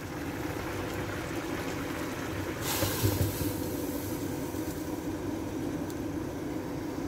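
Coconut-milk fish curry simmering in a frying pan, a steady bubbling hiss. A brief louder rush of hiss comes about two and a half seconds in.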